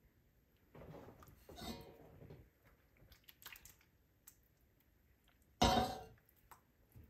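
A spoon stirring thick soup in a pot, and tortellini being scraped from a glass bowl into it, with small clinks. There is one loud clunk of kitchenware about five and a half seconds in.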